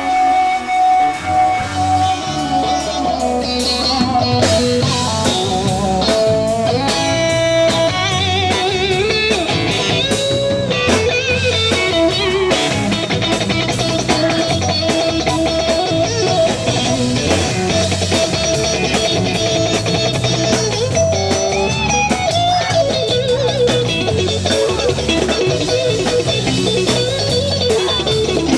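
Live rock band playing an instrumental stretch: an electric guitar carries the lead with bent, wavering notes over bass guitar and drum kit.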